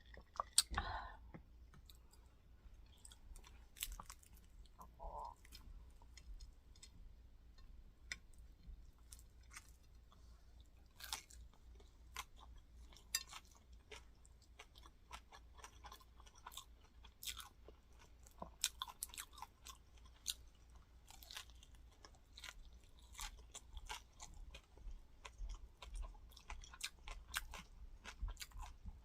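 Close-up chewing of crispy fried rice cake (cơm cháy) topped with pork floss: many small crunching crackles, uneven in rhythm, with a stronger bite about half a second in.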